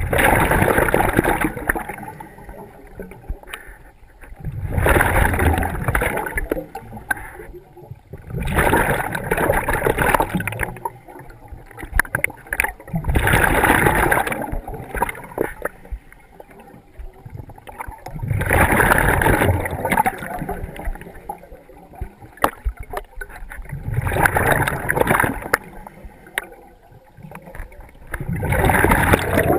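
Scuba diver breathing through a regulator underwater: a rush of breath and bubbles about every four to five seconds, seven times, with quieter stretches between.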